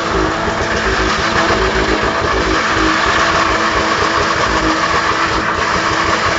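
BMW E30 316's four-cylinder engine held at steady high revs during a burnout, its rear tyres spinning in place on the asphalt with a dense hiss of tyre noise.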